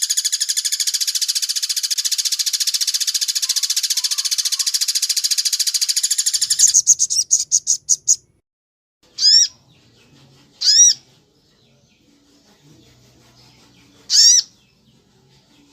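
A bird calling: a fast, continuous, high trill for about seven seconds that slows into separate notes and stops. Then come three short, arched calls over the next few seconds, with gaps of a second or more between them.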